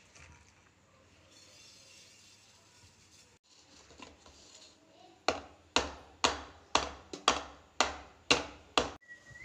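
A steel cake container holding batter is knocked sharply about nine times, roughly two knocks a second, each with a short metallic ring. A brief high steady tone sounds near the end.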